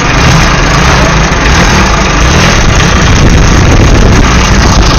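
Motorcycle engine running steadily while the motorcycle and sidecar ride along, loud and unbroken, heard from the sidecar.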